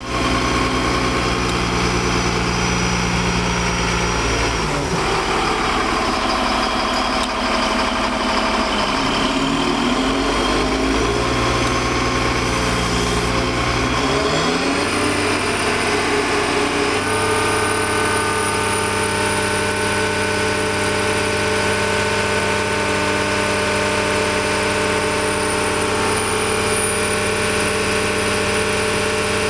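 Mobile crane's diesel engine running, its speed dropping and picking up again several times in the first fifteen seconds, then holding steady, as it powers the boom and hoist.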